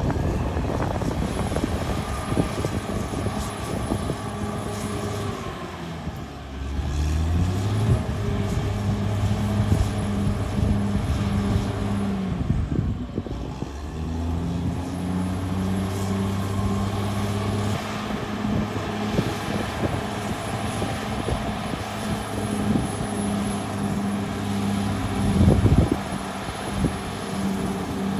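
Caterpillar D6R XL bulldozer's diesel engine running hard, its speed sagging and then picking back up twice as it takes and sheds load. A loud clatter of knocks comes near the end.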